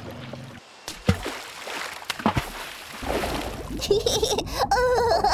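Cartoon water sound effects: splashing and sloshing with a couple of sharp plops, then from about three seconds a low underwater rumble with wavering, whale-like calls over it.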